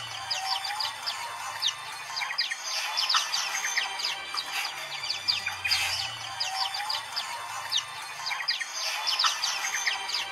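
A flock of caged white-eyes (pleci) chirping and twittering together in a dense chorus of quick, high, down-slurred notes. This is the 'ombyokan' crowd sound played to coax a silent pleci into singing.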